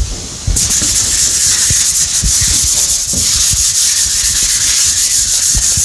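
A rag or hand rubbing briskly across an engine-turned aluminum sheet, giving a steady, loud, hissy scrubbing that starts about half a second in.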